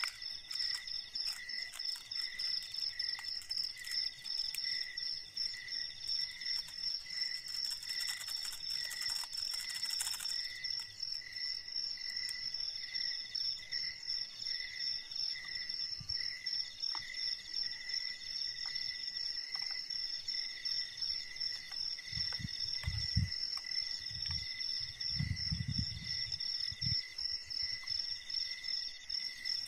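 Forest insects chirping steadily: a continuous chorus of rapid, evenly pulsed high chirps at two pitches, with a third insect calling in phrases that come and go. A brief rustle comes about eight seconds in, and a few low dull thuds come near the end.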